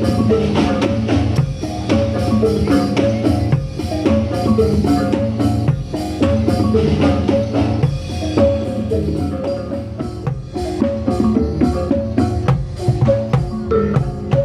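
Javanese reog accompaniment playing continuously: drums together with tuned, struck metal or mallet percussion in a fast, repeating rhythmic pattern.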